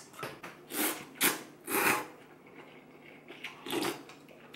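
A person eating noodle soup: several short slurps of rice noodles in the first two seconds, then a sip of broth from a soup spoon near the end.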